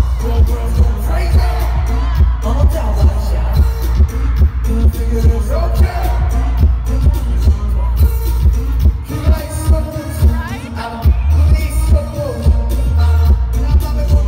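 Live K-pop concert music over an arena sound system: a loud, heavy bass beat with singing.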